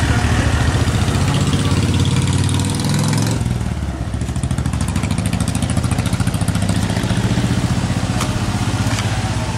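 A motor vehicle engine running close by, a steady low throb with a fast, even pulse. A higher hiss of road noise over it drops away about three and a half seconds in.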